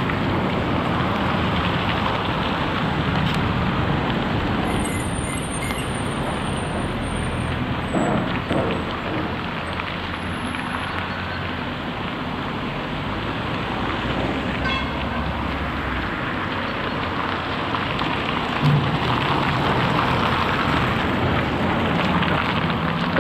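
Construction-site diesel machinery and traffic noise, a steady even hiss and rumble, with a couple of brief knocks, one about eight seconds in and a louder one near the end. A steady low engine hum comes in over the last couple of seconds.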